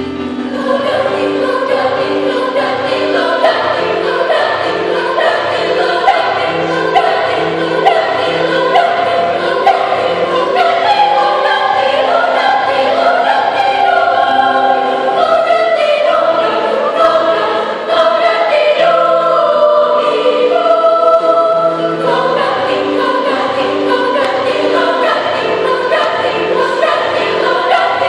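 Children's choir singing a praise song in unison over a steady keyboard accompaniment, the voices coming in right at the start.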